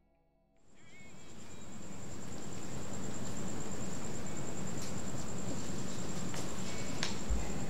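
Night ambience of crickets chirping in a steady high-pitched trill, fading in about half a second in over a low, steady background hum. A few faint ticks and a brief low bump come near the end.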